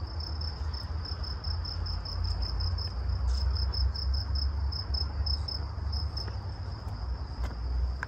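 Crickets chirping, a high thin trill pulsing about five times a second, over a steady low rumble.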